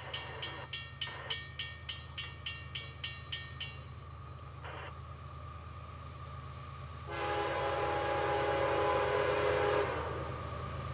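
Freight diesel locomotive horn: a short toot about four and a half seconds in, then one long chord of several tones lasting nearly three seconds, over a steady low rumble. Before the horn, a bell rings about three times a second and stops about four seconds in.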